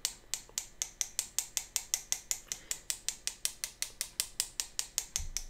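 A metal palette knife rapidly tapping the handle of a small fan brush, a steady run of light clicks at about six a second that stops shortly before the end. Each tap flicks white paint off the bristles, spattering stars onto a watercolour painting.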